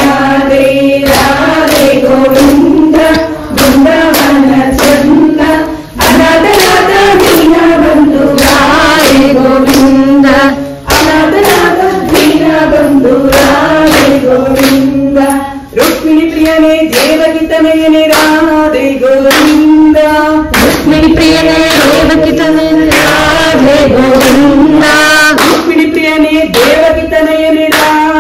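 Devotional bhajan sung by a group of male and female voices, with a steady beat of sharp percussive strokes under the melody.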